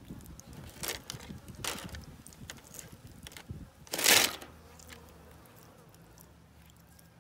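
Tegu biting and crunching raw chicken: three short wet crunches, the loudest about four seconds in as it tears at a piece.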